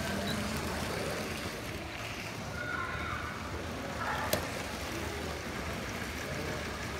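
Busy exhibition-hall background: a steady hum and noise with faint, indistinct voices. A single sharp click sounds about four and a half seconds in.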